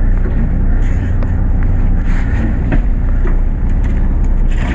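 Fishing boat's engine running with a steady low rumble, with a few faint clicks and knocks of handling over it.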